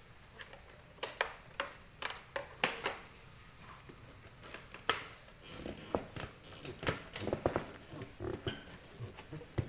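Scattered sharp clicks and light knocks of small objects being handled and set down, with irregular rustling and shuffling in the second half.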